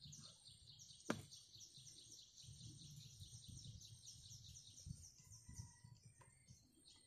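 A small bird singing faintly in a long, high trill of rapid, evenly repeated notes that stops at about five and a half seconds. A single sharp click comes about a second in.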